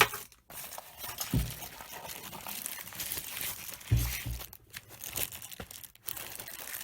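Plastic packaging crinkling and rustling as multimeter accessories are unpacked from their box, with a couple of soft knocks.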